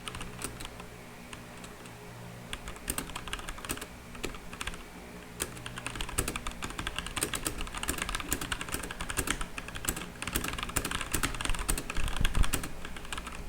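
Typing on a MageGee MK1 tenkeyless mechanical keyboard with red switches: an uneven run of keystrokes, a few scattered presses at first, then fast, dense typing from about two and a half seconds in.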